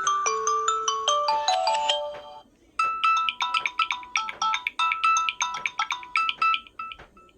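Samsung Galaxy A21s ringtones played back to back. A bright mallet-like melody ends about two and a half seconds in. After a short pause another ringtone of quick, repeated bell-like notes plays and fades out near the end.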